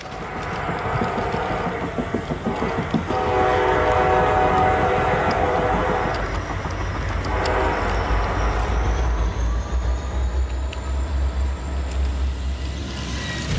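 Train horn blowing a long chord-like blast, then a second shorter blast about 7 s in, with a low rumble building under it afterwards.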